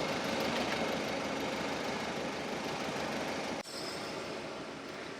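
An engine idling with a steady hum. About three and a half seconds in the sound breaks off for an instant and then carries on slightly quieter.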